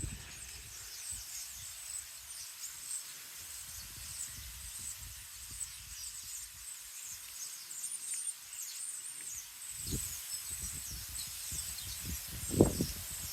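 Many small birds chirping in rapid, high, overlapping calls, with wind gusting on the microphone about ten seconds in and more strongly near the end.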